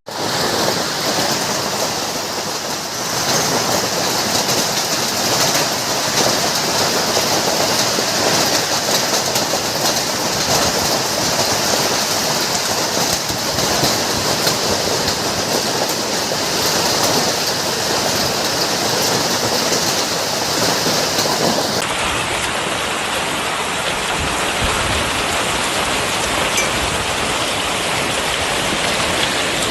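Heavy rain and hail falling hard on surfaces, a dense, steady hiss of countless small impacts. It changes abruptly about 22 seconds in, when the sound becomes duller.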